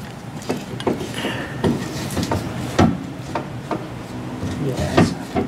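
Irregular light knocks and clunks, with some rubbing, as the old alternator of a 1990 Honda CRX is worked around in the engine bay in search of a way out.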